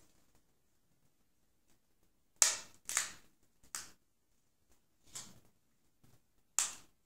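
A large priest's altar host, a dry unleavened wafer, being broken by hand at the fraction rite: about five crisp snaps at uneven intervals. The loudest comes about two and a half seconds in and another near the end.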